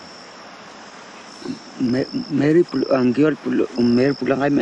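Insects chirping in a high, steady tone, in pulses about a second apart. From about a second and a half in, a man's voice talking in the Sambia language is louder than the insects.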